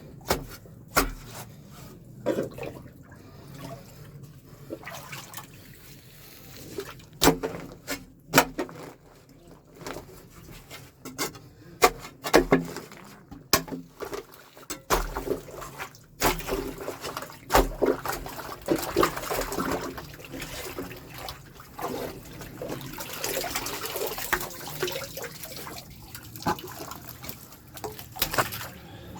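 Sewage water splashing and flowing in a blocked drain, with many sharp knocks and clatters throughout. Through much of the second half a steadier rush of moving water.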